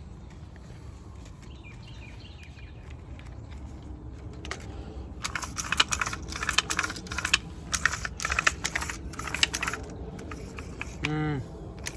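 Irregular clicking and rattling of small hard parts being handled, loudest in the second half, as a chainsaw's recoil starter is fitted back together.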